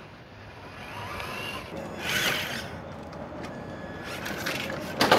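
Traxxas TRX-4 1:10-scale RC rock crawler driving, with a faint whine from its brushed electric motor and gears that rises about a second in. About two seconds in there is a short, louder rush of noise.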